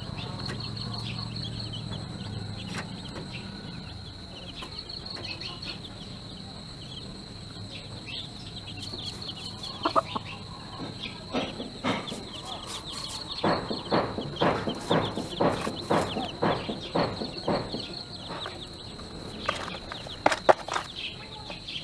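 Hen feeding at a tray of grain: quick sharp clucks and pecks, about two or three a second, starting about halfway through and loudest for several seconds after.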